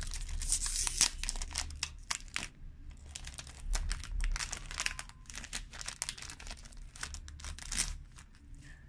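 Foil-lined plastic trading-card booster pack being torn open and crinkled by hand: a dense run of crackles and rips, pausing briefly after about two and a half seconds, then crinkling again as the wrapper is pulled apart.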